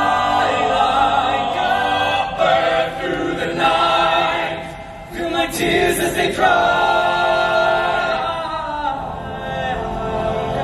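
A male vocal ensemble singing a slow song live on stage in close harmony, holding long chords. The singing dips briefly about five seconds in, then picks up again.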